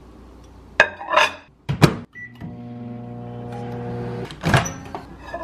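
Microwave oven door clacking shut and a keypad beep, then the microwave running with a steady hum for about two seconds. Another clack of the door comes near the end.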